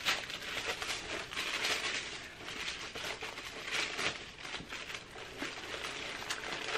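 Sheets of white paper rustling and crinkling as they are handled and unfolded, with small irregular crackles.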